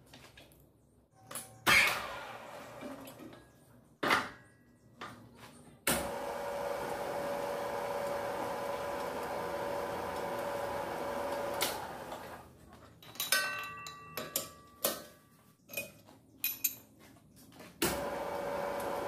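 Metal lathe turning a motorcycle wheel clamped in its chuck. There are a few sharp metallic knocks, then about six seconds in the lathe starts and runs steadily with a hum. It stops after about six seconds amid a string of clanks, and starts again near the end.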